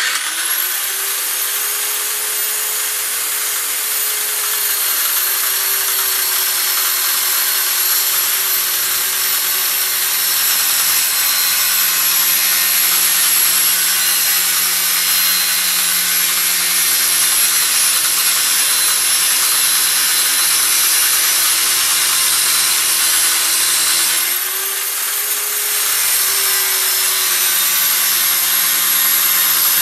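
Angle grinder spinning up and cutting through a steel pipe: a steady high whine over a grinding hiss. About 24 seconds in the pitch briefly drops and then spins back up.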